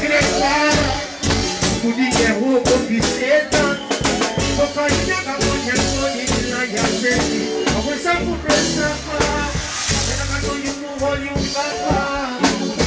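Live reggae band playing: a steady drum-kit beat under bass, keyboard and guitar, with a lead vocal over the band.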